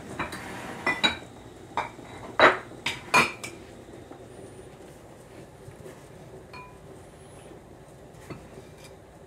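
Ceramic sugar canister and glass measuring cup clinking and knocking as sugar is scooped out: a quick run of sharp clinks over the first three seconds or so, then one light clink later.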